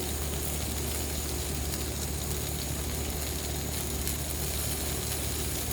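Ninja Woodfire electric grill running with a steady low hum from its fan.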